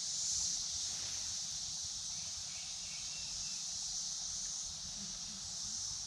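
Steady high-pitched chorus of summer insects.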